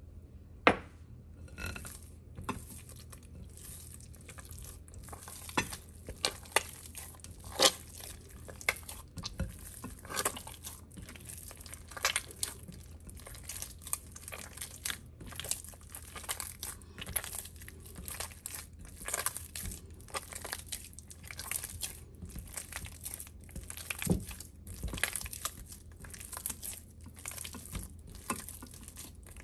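Hands squeezing, folding and pulling apart sticky bread dough in a glass bowl to work in the yeast mixture: a continual irregular run of wet squelching and tearing sounds. A few sharp knocks stand out, the loudest about a second in.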